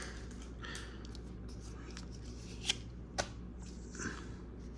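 Pokémon trading cards being handled and flipped through: soft slides and rustles, with two sharp clicks about half a second apart a little over halfway through.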